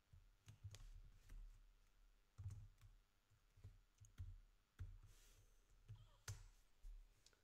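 Faint keystrokes on a computer keyboard: about a dozen separate key presses with short pauses between them, the sharpest one near the end.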